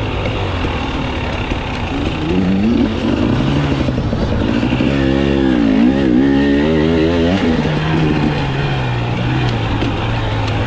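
KTM dirt bike engine running under riding load, its revs rising and falling with the throttle. For a couple of seconds around the middle the revs flick rapidly up and down.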